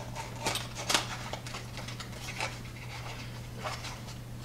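Hands handling and opening a small cardboard padlock box: light cardboard rustling with a few soft taps and clicks, over a steady low hum.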